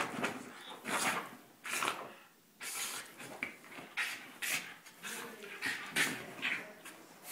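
A Cairn Terrier rolling and rubbing itself on a fabric sofa after its bath: irregular bursts of rustling against the upholstery mixed with the dog's breathing.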